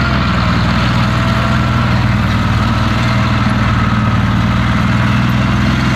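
Heavy tank engine idling steadily with a low hum and a fast, even pulse; it cuts off suddenly at the very end.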